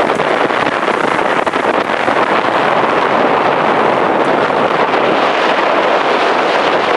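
Loud, steady rush of wind and water on the open deck of a boat, with wind buffeting the microphone.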